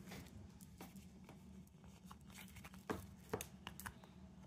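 Oracle cards being handled: faint soft clicks and slides as the deck is picked up and a card is drawn, with a few sharper taps about three seconds in, over a faint steady low hum.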